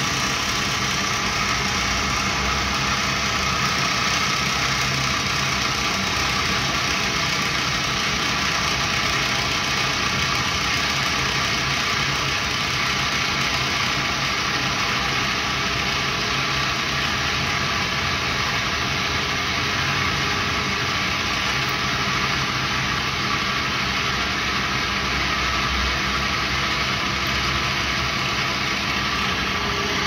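Pillar drill press motor running steadily, a constant machine hum, while drilling out a screw stuck in a Leatherman multitool's plier jaw.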